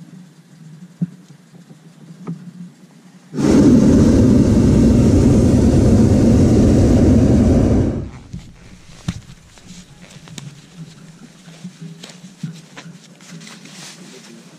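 Hot air balloon's propane burner firing in one loud blast of about four and a half seconds, starting and stopping abruptly.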